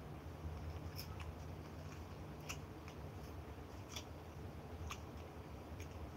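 Wet mouth clicks and lip smacks of a person chewing a mouthful of rice and mutton curry, about half a dozen sharp smacks spread out, over a steady low hum.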